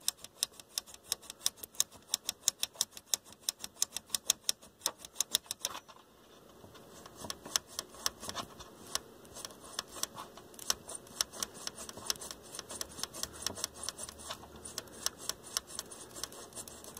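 Tone-control potentiometers of a vintage stereo receiver being turned back and forth to work in contact cleaner, giving rapid, even clicking about five times a second. After about six seconds a faint hiss comes in and the clicks turn quicker and less regular.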